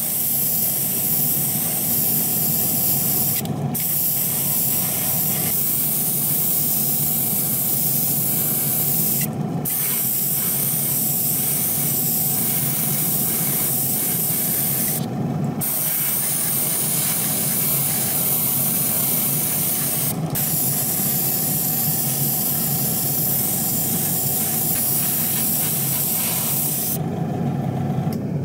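Airbrush spraying paint: a steady hiss of air and paint that stops briefly about five times as the trigger is let off, over a steady low hum.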